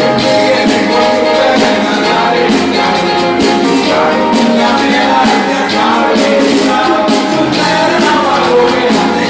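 Live worship band playing: singing voices over keyboard, with a steady percussion beat.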